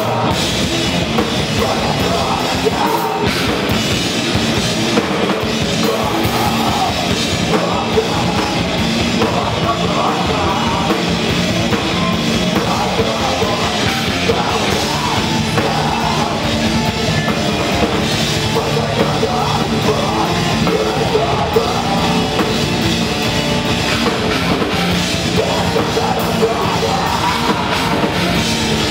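A live rock band playing loudly and without a break: drum kit, electric guitars and electric bass through amplifiers.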